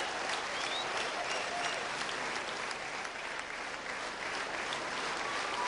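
Audience applauding steadily, a dense, even run of many hands clapping.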